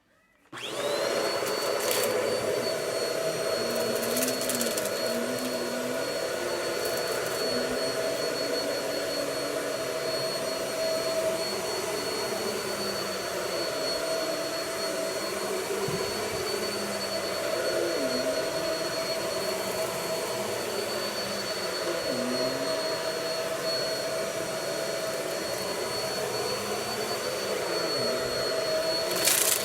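Vacuum cleaner switched on about half a second in, its motor whining up to speed and then running steadily. There is a short knock near the end.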